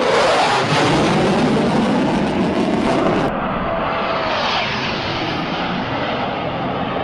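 Fighter jet engine noise from a low pass, loud, with its pitch sliding down as the jet goes by. About three seconds in, the highest part of the sound cuts off abruptly, and steady jet noise carries on.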